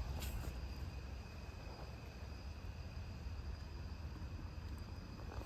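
Crickets trilling steadily, one unbroken high pitch, over a low rumble on the microphone.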